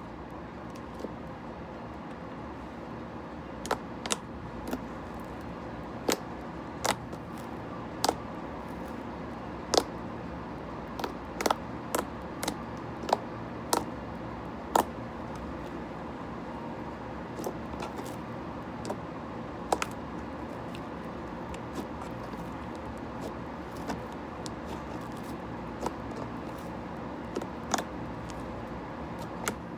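Slime ASMR: slime being pressed and squished by hand, giving irregular sharp pops and clicks over a steady background noise.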